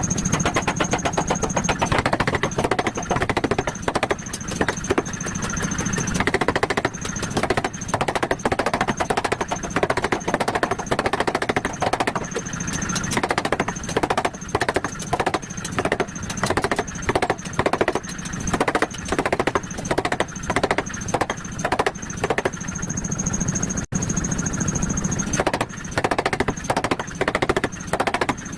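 A 40 kg pneumatic forging hammer striking hot steel while a chisel is forged. It runs in fast strings of blows, and in the middle stretch slows to separate blows about two a second, with a low machine hum and a thin high whine during the fast runs.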